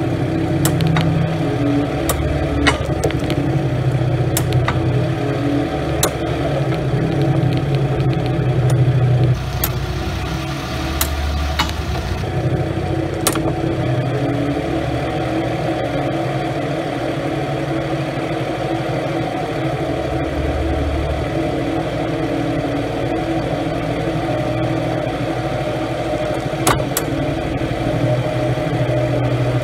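Mercedes S320 car engine running steadily, with sharp clicks now and then.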